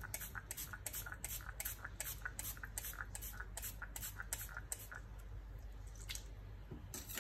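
Small handheld spray bottle pumped again and again, about three quick sprays a second, misting potting soil to moisten it. The spraying stops about five seconds in, with two more single sprays after.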